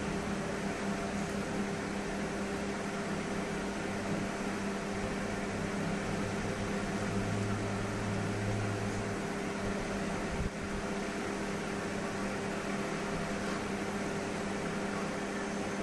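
Steady electric hum with an even hiss from a running room appliance, such as a fan. There is a slightly stronger low drone for a couple of seconds midway, and a small click a little later.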